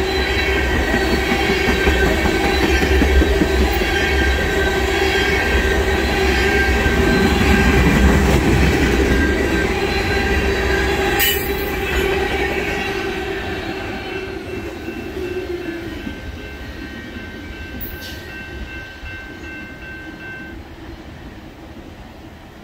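Oil train of loaded tank cars rolling past, with wheels rumbling on the rails and a steady high wheel squeal. About halfway through the rumble starts to fade as the end of the train draws away, and the squeal dies out shortly before the end.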